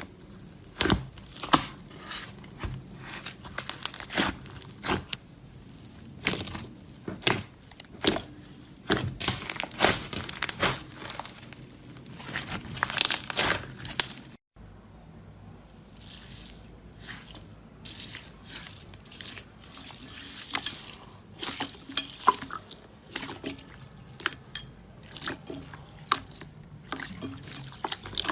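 Slime being squeezed and poked by hand: a close, dense run of sharp wet clicks, pops and crackles. There is an abrupt change to a different recording about halfway through.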